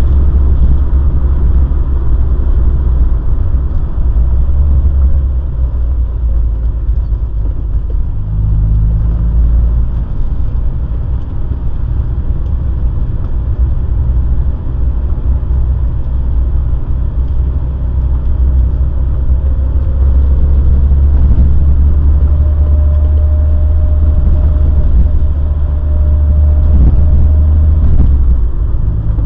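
Morris Minor Traveller on the move, heard from inside the cabin: a steady low engine and road rumble that changes in pitch about eight seconds in and again about twenty seconds in, with a faint whine near the end.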